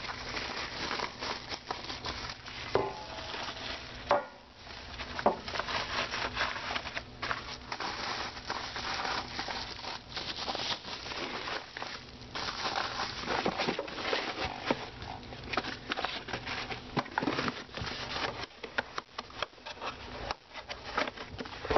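Bubble wrap and cardboard packaging being handled: a busy crinkling, rustling crackle with scattered small knocks, ending with a cardboard box being folded shut.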